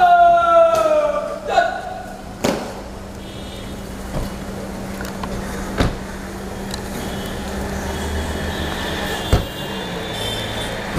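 A singing voice holds a note and lets it fall over the first two seconds, then gives way to outdoor crowd background with a steady low hum, faint voices and a few scattered knocks.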